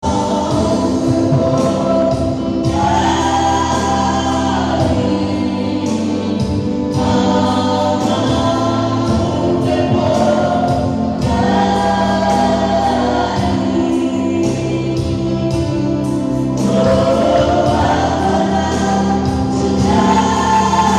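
Gospel choir singing with band accompaniment: phrases of several voices over a held bass line and a regular beat.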